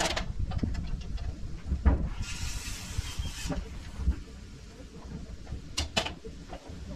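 SkyTrak telehandler's diesel engine idling with a low rumble, with sharp metal clinks and knocks as the work platform on its forks is chained on, the loudest about six seconds in. A short hiss rises and stops about two seconds in.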